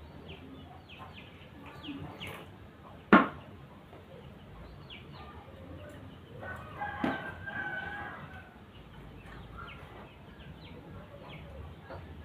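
A rooster crows once, about six and a half seconds in, over faint short chirps. A single sharp knock about three seconds in is the loudest sound.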